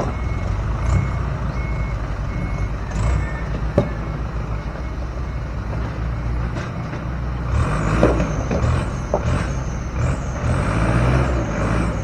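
Dump truck's diesel engine running, with its reversing alarm beeping at an even pace until about three seconds in. The engine gets louder for a few seconds near the end.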